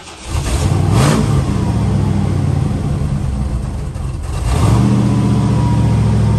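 The V8 of a 1969 Lincoln Continental, a 460, runs at the rear bumper. There is a brief rev about a second in, a dip in the note around four seconds, and then it settles into a steady, slightly faster idle near the end.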